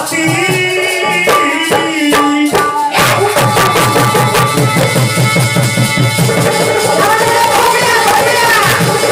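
Instrumental interlude of a Hindi devotional song: tabla drumming under a melody instrument. The band comes in fuller and busier about three seconds in.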